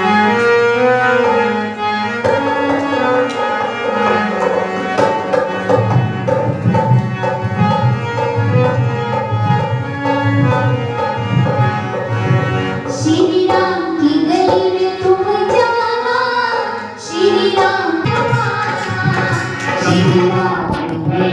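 Hindu devotional jagrata music: held instrument notes over a hand-drum rhythm, with a singer's voice coming in more clearly a little past halfway.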